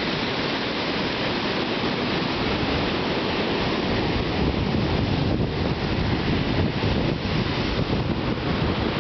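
Strong ocean surf breaking and washing up a sandy beach in a continuous rush, driven by a storm swell. Wind buffets the microphone, more strongly from about halfway through.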